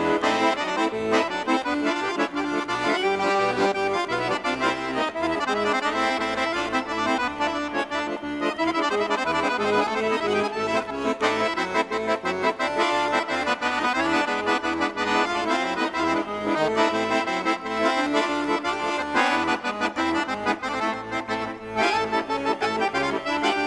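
Instrumental background music with held, overlapping notes and chords.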